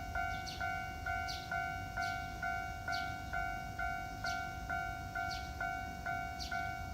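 Japanese railroad crossing alarm ringing its electronic bell: a steady two-note ding repeated about twice a second, over a low background rumble.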